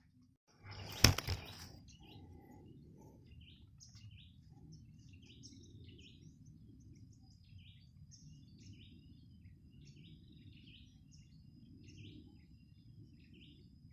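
Faint scattered bird chirps over a low steady outdoor background, with one sharp bang about a second in.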